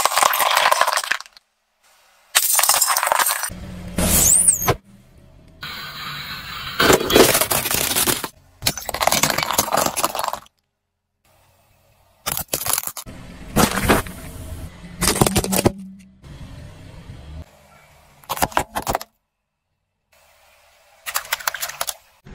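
Car tyre rolling over and crushing small plastic objects: repeated cracking and crunching of breaking plastic. It comes in several separate stretches that start and stop abruptly, some with a low steady hum underneath.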